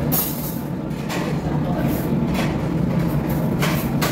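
Steady low background rumble and hum of the restaurant's surroundings, with brief hissing swells every second or so.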